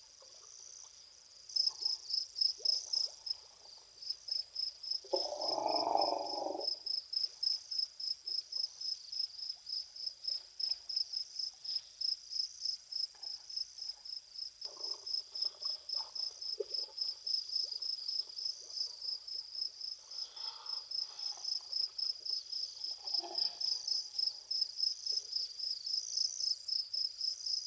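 Cricket chirping steadily in a fast, even pulse, high-pitched, starting about a second and a half in. About five seconds in, a brief, louder, lower sound lasts a second or so.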